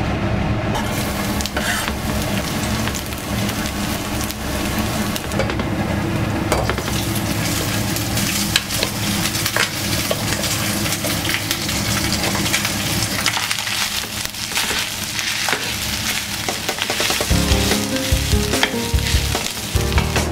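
Leftover rice frying and sizzling in hot oil in a stainless steel frying pan, with the wooden spatula scraping and clicking against the pan as the rice is stirred.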